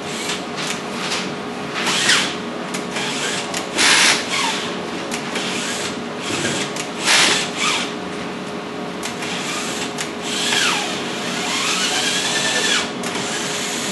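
Cordless drill driving a tap to cut threads in freshly drilled holes in a mounting plate. It runs in several short bursts, then a longer run near the end whose pitch rises and falls.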